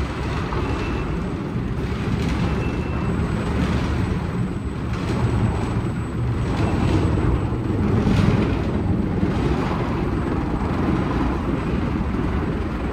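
WashTec SoftCare² Takt rollover car wash machinery running: a loud, steady, dense rush of noise.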